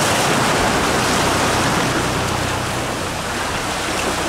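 Ocean surf washing and churning over jetty rocks: a steady rush of whitewater.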